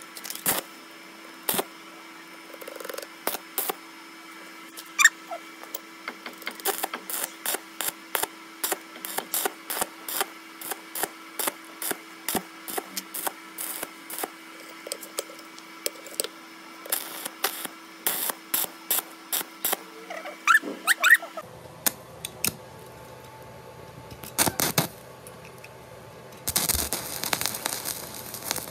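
Stick welding arc crackling and spitting in irregular sharp pops over a steady hum. About three quarters of the way in the hum drops lower, and near the end the arc crackle turns dense and continuous.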